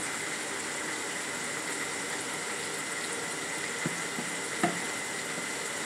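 Steady sizzling of fish frying in a pan, with two faint knocks a little before four and a half seconds in.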